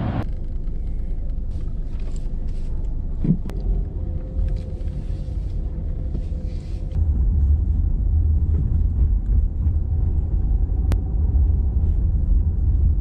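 Low, steady rumble of a car driving, heard from inside its cabin, growing louder about seven seconds in.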